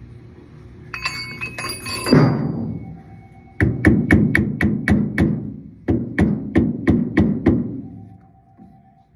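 Metal clattering and one heavy thud, then a hammer striking a metal part in two quick runs of about six blows each, roughly three a second, each blow ringing briefly: fitting the new pulley on a Maytag commercial washer's drive motor.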